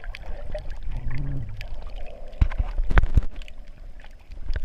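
Muffled underwater sound picked up by a GoPro in its waterproof housing: a low water rumble with gurgling and bubbling, a brief low hum about a second in, and a few sharp knocks around two and a half to three seconds in.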